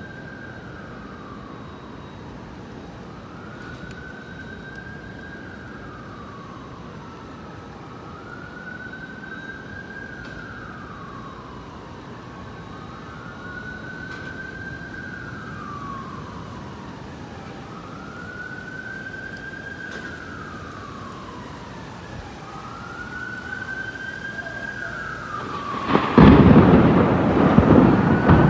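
An emergency-vehicle siren wailing in slow cycles, each rise and fall taking about three and a half seconds, over the steady hiss of rain. Near the end a loud clap of thunder breaks in and rumbles on, the loudest sound.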